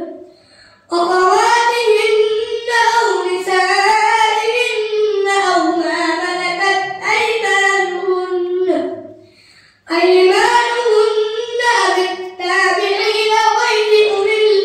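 A boy reciting the Quran in melodic tajweed style. His voice rises and falls in long, drawn-out phrases, with a breath pause about a second in and another just before ten seconds.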